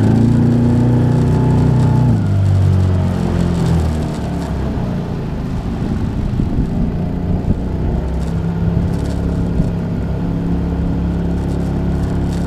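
Eska 15-horsepower outboard motor running unevenly, its speed rising and falling: high at first, sagging about two seconds in, then picking back up in the second half. This surging is the bad running that the owner puts down to old fuel lines and old gas. The motor only ran well with the choke pulled.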